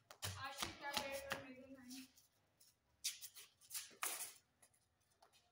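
Badminton rackets hitting a shuttlecock, a few sharp strikes from about three to four seconds in, after a boy's short call in the first two seconds.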